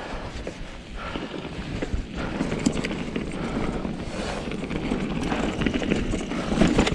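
Mountain bike rolling over a rough trail: tyres crunching over stones, with frequent small knocks and rattles from the bike.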